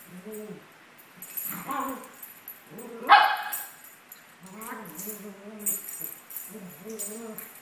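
Two Maltese dogs growling at each other in play as they wrestle, in several short wavering growls. About three seconds in, one of them gives a single sharp bark, the loudest sound.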